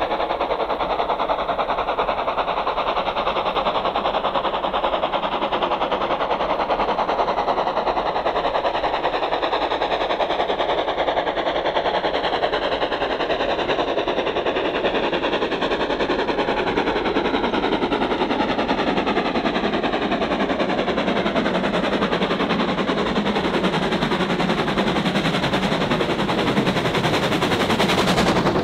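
Steam locomotive working hard as it hauls a passenger train, its exhaust beating in a rapid, steady stream of chuffs. It grows a little louder as it approaches.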